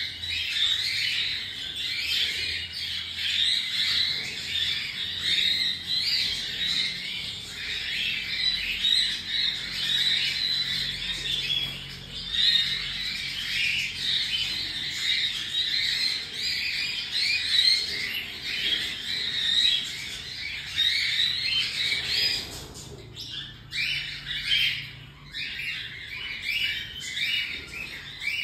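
Baby cockatiels calling, a continuous chorus of many short overlapping calls that thins out briefly about 23 seconds in.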